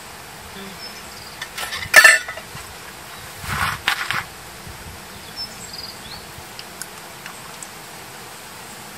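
A cola bottle being handled: a sudden sharp noise about two seconds in, then a shorter rustling noise around four seconds. Insects sound steadily in the background.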